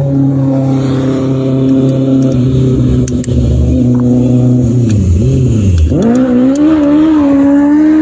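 A vehicle engine running steadily, dropping in pitch about five seconds in, then revving up sharply and holding a higher pitch.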